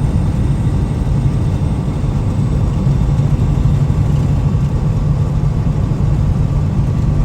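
Steady engine and road rumble of a vehicle driving down the highway, heard from inside the cab.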